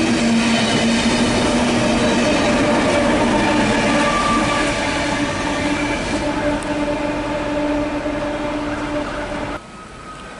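A heritage passenger train rolling past with its wheels clacking over the rails. The trailing GL-class diesel locomotive GL109 goes by and away with a steady engine hum. The sound breaks off sharply near the end.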